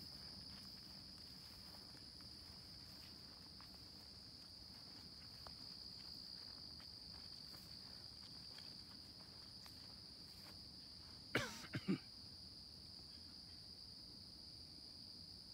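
Faint, steady, high-pitched chorus of insects. About three-quarters of the way in come two short, louder sounds that fall in pitch.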